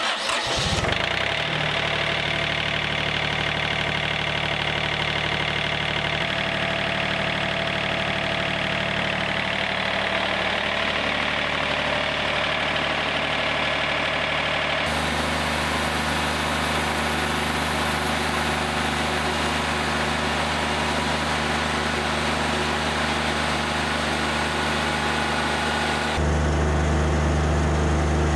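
The diesel engine of a Wood-Mizer LT40 Wide portable sawmill starting up and settling into a steady run. Its tone shifts abruptly twice, about 15 and 26 seconds in.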